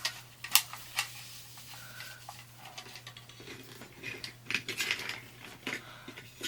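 Scattered light clicks and clacks of small hard objects being handled on a desk, with a sharp click about half a second in, another at one second, and a flurry of taps between about four and five and a half seconds. A steady low hum runs underneath.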